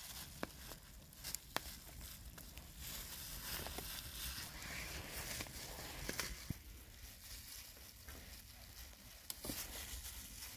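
A knife slicing raw chicken breast on a wooden stump chopping block, giving a handful of sharp, scattered knocks of the blade on the wood over a faint background hiss and rumble.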